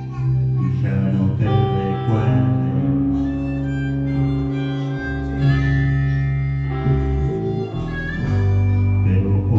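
Instrumental music with guitar: held notes over a low bass line, changing every second or two.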